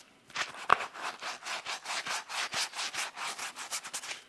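Toothbrush bristles scrubbing foam cleaner into the mesh fabric of an AirPods Max ear cushion in quick back-and-forth strokes, about four or five a second. The strokes start a moment in and run steadily to near the end.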